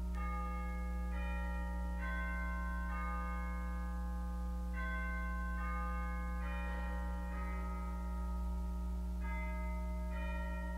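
Church organ playing slow sustained chords that change about once a second over a steady held bass note: the prelude opening the service.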